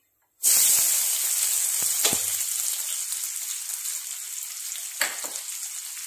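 Sliced onions dropped into hot oil with tempered mustard seeds in a kadai: a sudden loud sizzle about half a second in that settles into steady frying. Two short knocks, about 2 and 5 seconds in.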